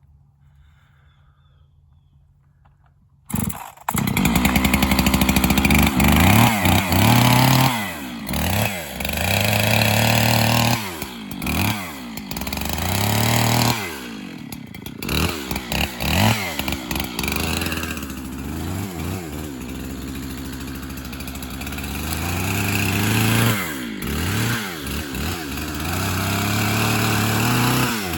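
Chainsaw running under load and revving up and down repeatedly while cutting brush and small trees. It starts suddenly after about three quiet seconds.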